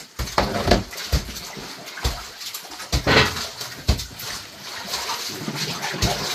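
Fish being shifted about by hand in a boat's wooden fish hold: wet sloshing and splashing with irregular thuds and knocks as fish and bodies bump against the hold.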